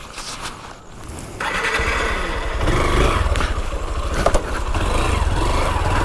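Motorcycle engine starting about a second and a half in, then running steadily and getting louder near three seconds in.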